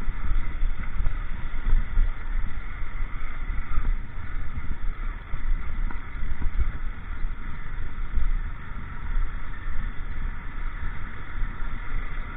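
Honda motorcycle riding slowly over a rough, broken gravel road, picked up by the rider's on-board camera: a steady, heavy low rumble of engine, road and wind that rises and falls with the bumps.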